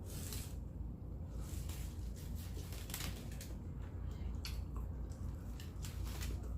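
Close-up chewing of food: irregular crisp crunches and wet mouth sounds, over a steady low hum.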